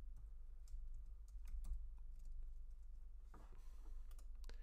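Typing on a computer keyboard: quiet, irregular key clicks.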